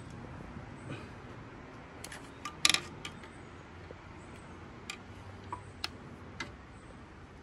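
Scattered small clicks and taps of needle-nose pliers working at the plastic wiring connector and its tab on a car alternator. The loudest is a quick cluster of clicks about two and a half seconds in.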